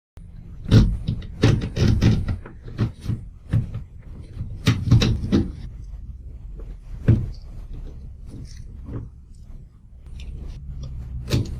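Hands working on solar equipment wiring and its box: a run of sharp clicks and knocks, densest in the first half and again near the end, over a steady low hum.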